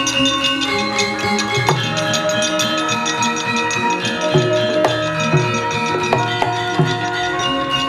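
Javanese gamelan ensemble playing: ringing metallophone and gong tones over a busy pattern of kendang hand-drum strokes.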